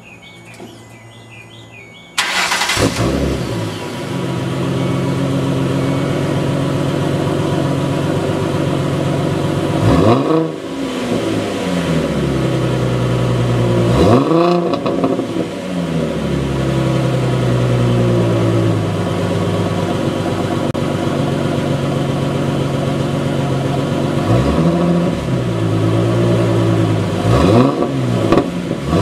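A 2007 Ford Mustang's 4.0-litre V6 exhaust, fitted with a Mustang GT takeoff muffler. It starts up suddenly about two seconds in and settles into a steady idle. Several short throttle blips rise and fall in pitch, around ten and fourteen seconds in and twice more near the end.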